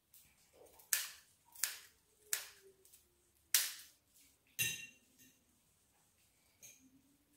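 Kitchen scissors snipping through the shells of raw whole prawns: five sharp, crisp snips at uneven spacing over about four seconds, then a lull.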